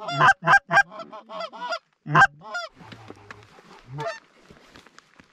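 Goose call blown by a hunter to imitate Canada geese: a quick run of sharp honks and clucks, then one more honk about four seconds in.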